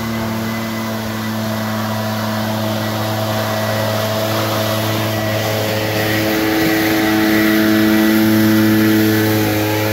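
Backpack leaf blower running steadily: a small engine drone under a rush of air, the air noise swelling louder about seven seconds in and easing off just before the end.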